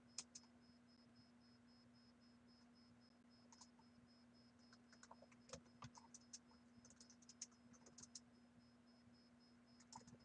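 Computer keyboard keys clicking faintly in short, irregular runs of typing.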